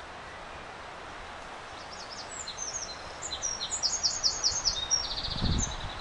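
A songbird singing a quick, varied phrase of high notes, ending in a rapid trill, over a steady outdoor hiss. A low thud comes near the end.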